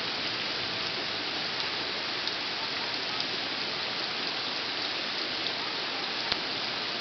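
Steady heavy rain falling on forest foliage, an even hiss with occasional sharp ticks of single drops landing close by, the loudest about six seconds in.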